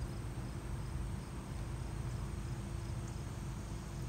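Summer insects chirping: a steady high buzz with a quick repeating pulse, over a steady low rumble.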